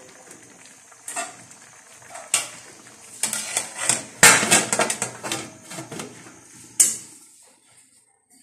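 Stainless steel pot lid and pan clattering: a run of metal clanks and scrapes, loudest about four seconds in, as the lid is set onto the pan.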